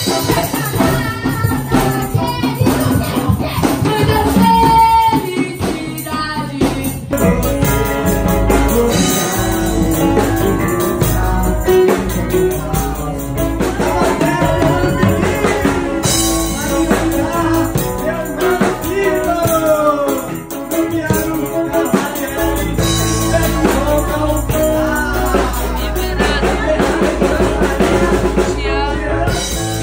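Live band jamming in a small room: drum kit, electric guitar and keyboard, with voices singing into microphones over the band and a tambourine shaking along.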